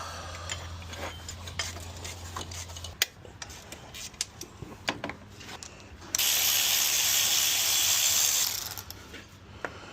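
Socket ratchet clicking in short strokes while loosening the alternator mounting bolts. About six seconds in comes a louder, continuous run of rapid ratcheting lasting a couple of seconds.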